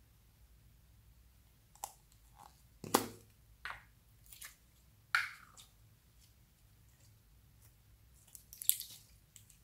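A small plastic slime container handled and opened: a few sharp clicks and knocks, the loudest about three seconds in as the lid comes off. Near the end, a burst of wet squishing and crackling as sticky green slime is pulled out by hand.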